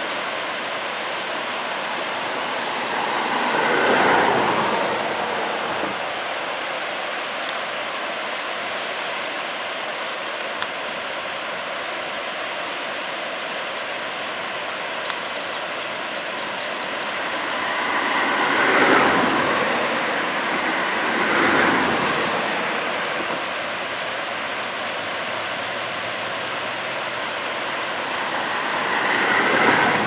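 Steady rushing outdoor background noise with no clear tone. It swells and fades four times, each swell lasting a second or two.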